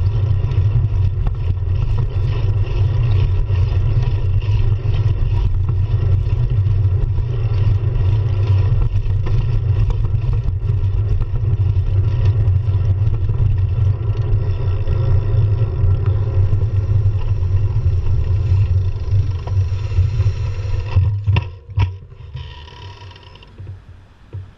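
Wind rumbling over a handlebar-mounted action camera's microphone, with tyre and road noise, as a road bike rides along at speed. About 21 seconds in it drops away sharply to a much quieter background with a few clicks as the bike slows.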